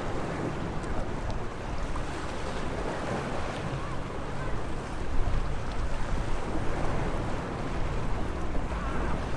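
Sea waves washing steadily against the shore, with wind on the microphone adding a low rumble.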